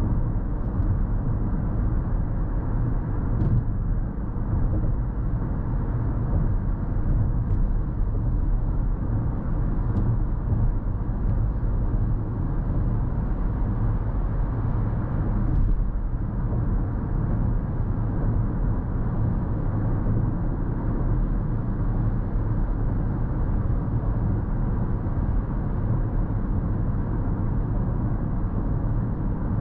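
Steady road and tyre rumble of a 2022 Lexus NX 350 cruising at highway speed, low and even throughout.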